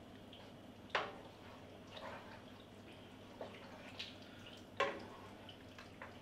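Utensil stirring chicken in coconut-milk curry sauce in a frying pan: wet, sloshing stirring with sharp clacks of the utensil against the pan, the two loudest about a second in and near five seconds in.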